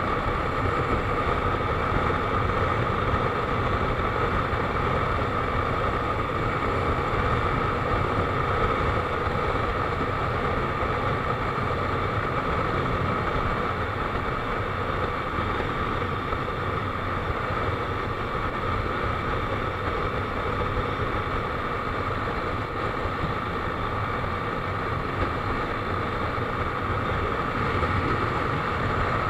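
Motorcycle engine running steadily at highway cruising speed, mixed with steady wind and road noise.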